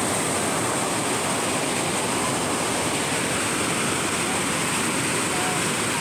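A waterfall's white water pouring over rocks, a steady, even rushing noise.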